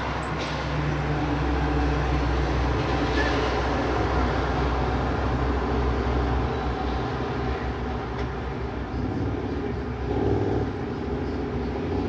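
Low, steady rumble of a vehicle engine, louder through the first half and swelling briefly again about ten seconds in.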